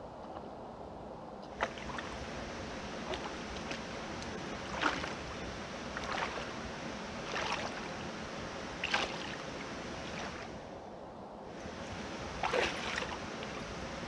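Footsteps wading through a shallow, rocky creek: a splash about every second and a half over the steady wash of flowing water, with a short pause near the end before a few more splashes.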